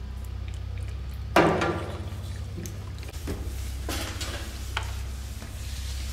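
Cat eating from a clear plastic tray: small licking and chewing clicks and taps against the plastic, with one sharper, louder knock about a second and a half in.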